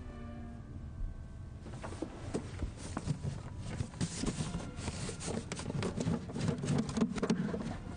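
Scraping, knocking and rustling as a wooden chest is pulled out from under a bed. The sounds start about two seconds in and are busiest and loudest in the second half.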